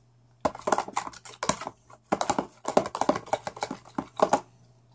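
Glue and hair conditioner being stirred in a container for slime, the stirring utensil making irregular runs of quick clicks and taps against the container's sides.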